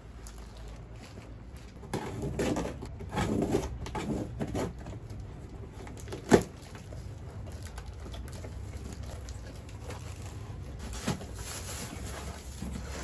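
A cardboard parcel and a padded plastic mailer being handled: packaging rustling and crinkling in bursts from about two seconds in, then a single sharp knock of the box on the desk near the middle, the loudest sound. It ends with quieter handling as the box flaps are opened.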